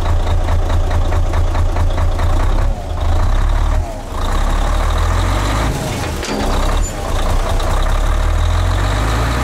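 Mercedes-Benz Actros 1843's V6 diesel idling steadily, freshly started after standing a long time, with a fast even exhaust pulse close to the tailpipe. A steady hiss comes in about four seconds in.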